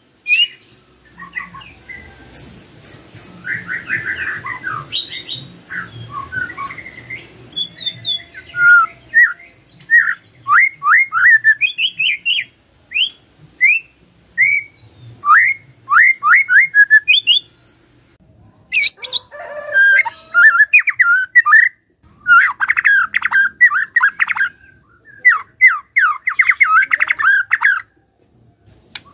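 White-rumped shama singing: a long series of quick, clear whistled notes that sweep up and down, breaking into dense runs of rapid chattering notes near the end.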